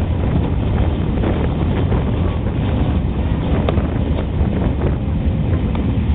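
Wind buffeting the microphone at an open carriage window, over the steady rumble of a moving steam-hauled train, with a few faint clicks.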